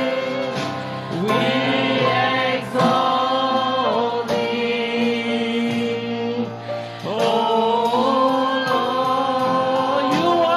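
Congregation singing a slow worship song in long held notes, with piano accompaniment.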